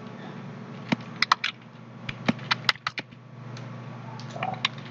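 Computer keyboard keys clicking as text is typed: a quick run of keystrokes from about a second in, then a few more near the end, over a steady low hum.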